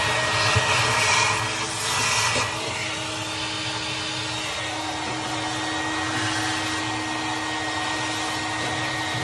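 Vacuum cleaner running, its hose sucking ash and debris out of a Traeger pellet grill's fire pot and off the grill floor. A louder rushing hiss for the first two seconds or so, then a steady hum.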